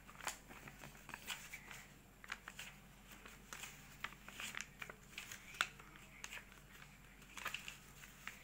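A square sheet of paper being folded by hand into an origami crane: soft, scattered rustles and crinkles as the paper is opened out and its creases are pressed flat, with one sharper crackle about halfway through.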